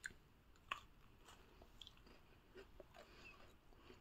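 Faint chewing of a biscuit: a few small crunchy clicks, the loudest a little under a second in.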